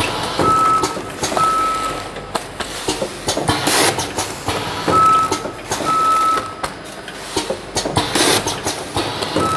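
Vertical form-fill-seal packing machine cycling, about one bag every four and a half seconds. Each cycle brings two short high tones, the first brief and the second longer, then a loud hiss with clicks and clatter.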